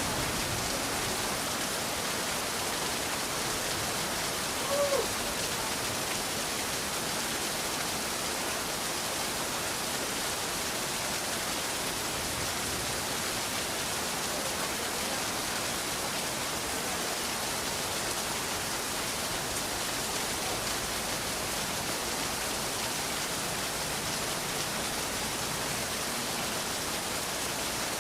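Steady rain falling, an even hiss with no thunder. A brief short tone cuts through once, about five seconds in.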